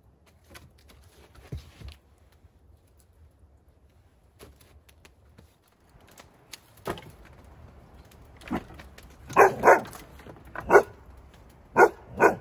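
German Shepherd dog barking: a run of short, loud barks in the second half, several coming in quick pairs, after a quieter stretch of faint scattered clicks.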